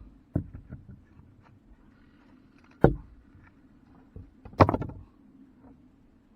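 A few sharp knocks and thumps of hard objects being handled. The two loudest come about three seconds and four and a half seconds in, the second followed by a short clatter, over a faint steady low hum.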